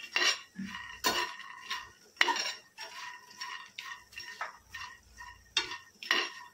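Makhana (fox nuts) being stirred in a metal pan while dry-roasting in a little ghee: a utensil scrapes and knocks against the pan, and the pan rings briefly after the harder knocks, at irregular intervals of about a second.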